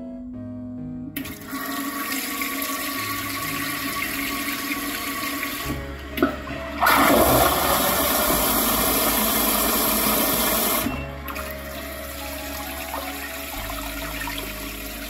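Pump-assisted smart toilet flushing. Water starts running into the bowl about a second in, and after a short knock it surges much louder for about four seconds. It then drops back to a lower running sound as the bowl refills.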